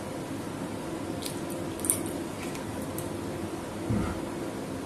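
Watery curry heating in an aluminium kadhai on a gas burner: a steady hiss with a few small sharp clicks, and a low thump about four seconds in.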